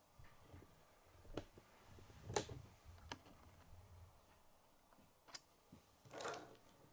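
Faint, scattered clicks and knocks of plastic K'nex pieces being handled: about five sharp clicks, the loudest about two and a half seconds in, and a short rustle near the end.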